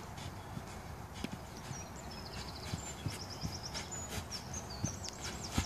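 Footfalls of a footballer running and hopping on artificial turf: irregular short thuds. Quick high bird chirps and trills sound through the middle and later part.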